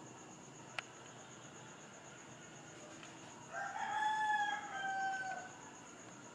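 A rooster crowing once: a drawn-out call of about two seconds, starting a little past the middle and dropping in pitch at the end. A brief click comes about a second in.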